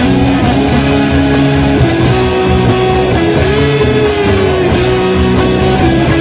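Rock music, instrumental: electric guitar playing long held lead notes over a steady band backing.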